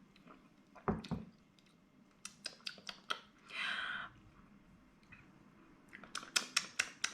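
Someone sipping a creamy cocktail through a straw and tasting it: a couple of soft low bumps about a second in, quick mouth clicks and lip smacks, a brief hissing sip about halfway, and more smacking near the end.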